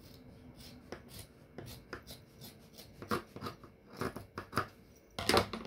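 Scissors cutting through white faux fur fabric: a run of short, irregular snips that grow louder, the loudest cluster about five seconds in.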